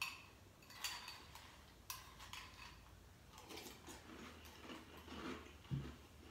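Faint crunching of a mouthful of crunchy waffle cereal being chewed, with a few light clicks of a metal spoon against the bowl in the first couple of seconds.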